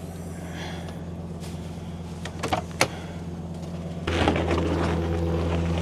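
Vehicle engine running with a steady low hum, heard from inside the cab, with a couple of sharp clicks midway. About four seconds in the engine gets louder and rougher.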